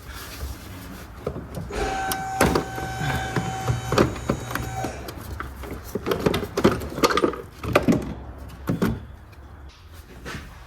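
A small electric motor whirs steadily for about three seconds, then clicks and knocks of hand work on metal parts follow.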